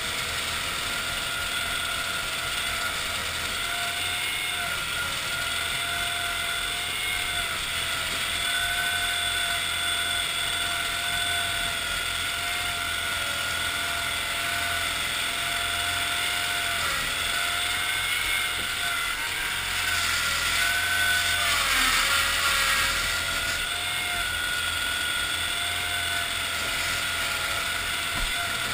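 A 1974 Cushman Trackster tracked all-terrain vehicle's engine and drive running steadily as it travels over rough ground. The engine note dips in pitch now and then and sags most about two-thirds of the way through, where it also gets louder as the engine takes on more load.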